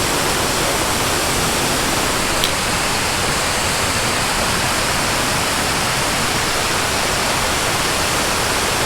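Yellowstone Falls, a waterfall on the Yellowstone Prong, rushing steadily.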